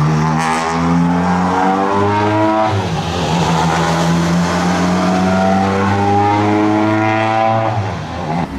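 Škoda Fabia R5 rally car's turbocharged four-cylinder engine accelerating away. Its pitch climbs, drops sharply about three seconds in as it shifts up, then climbs again until it backs off near the end.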